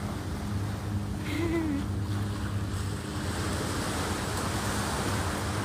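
Small surf washing up a sandy beach, a steady hiss that turns brighter about halfway through, over a steady low hum. A brief pitched voice-like call sounds about a second and a half in.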